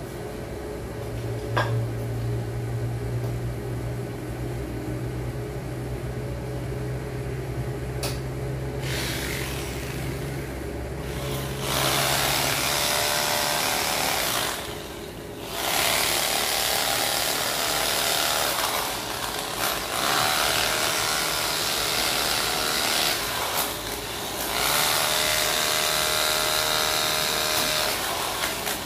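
A corded handheld electric power tool working on the road surface along a trench cut. It starts about nine seconds in after a steady low hum, then runs loudly with a short pause near the middle and a dip later on.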